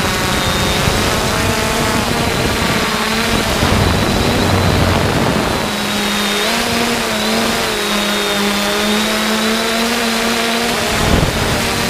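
3DR Solo quadcopter's electric motors and propellers whirring in flight, the pitch wavering up and down as the motor speeds change, over a steady rushing hiss. A short knock comes near the end.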